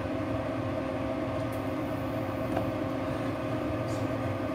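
Steady hum of an electric induction cooktop running under a wok, with a few constant tones over a low rumble. A spatula stirs the simmering stew, giving a faint knock about two and a half seconds in and a light scrape near the end.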